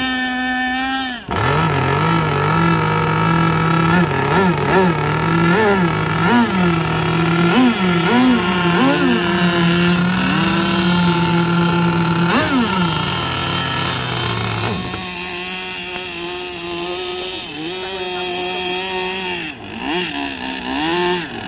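Zenoah 32cc two-stroke petrol engine of a radio-controlled gas boat running at speed on the water, its pitch rising and falling again and again as the throttle is worked. About a second in the note dips sharply, then comes back higher; in the second half it runs at a lower, more even pitch.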